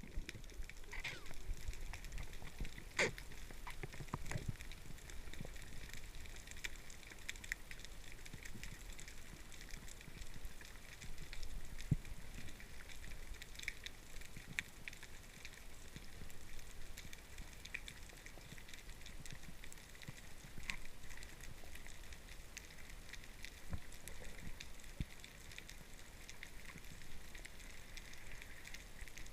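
Underwater: a steady fine crackle with scattered sharp clicks, and every so often a low knock, the drumming of brown meagre (Sciaena umbra).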